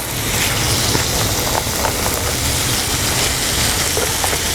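Pasta and fresh tomato sizzling in a hot, oiled pot while being stirred: a steady hiss with a few faint clicks.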